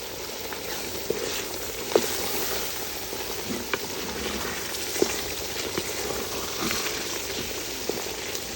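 Beef innards sizzling in a cooking pot: a steady frying hiss, with a few sharp clicks of a utensil against the pot.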